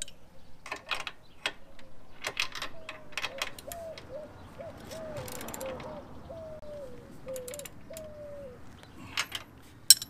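Wrenches clinking and turning a bolt and nut on a steel boat-trailer bracket, with a run of short squeaks, about two a second, through the middle as the nut is drawn tight.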